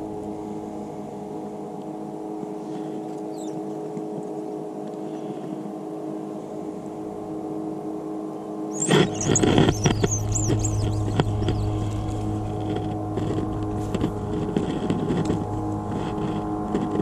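A boat motor humming steadily. About nine seconds in it grows louder and rougher, with a scatter of clicks and knocks over it.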